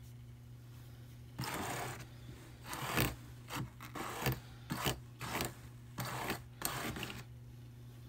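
A pointed metal pick scraping through wool fibre and the wire teeth of a drum carder's fine carding cloth, working the batt apart along the doffing strip. It makes a series of irregular scratchy strokes starting about a second and a half in and stopping about a second before the end, the loudest near three seconds.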